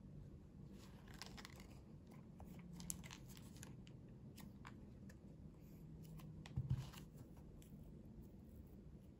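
Fingernails tapping and scratching on the printed sides of Cup Noodle cups as hands grip and shift them, in scattered light clicks and rustles. A soft knock about two-thirds of the way through, as a cup is moved on the table mat.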